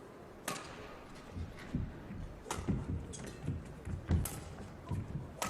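Badminton rally: four sharp racket hits on the shuttlecock about two seconds apart, with players' footsteps thudding on the court between the strokes.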